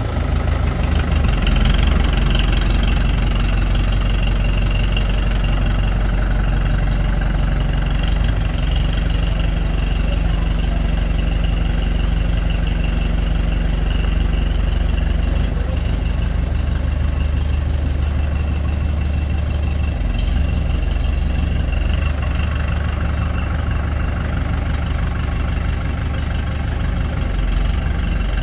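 Heavy engine running steadily, with a steady high whine over its low rumble.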